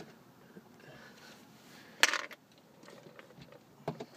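A Phillips screwdriver working small screws out of a plastic overhead console: a sharp metallic click about two seconds in, and a fainter click near the end, with quiet in between.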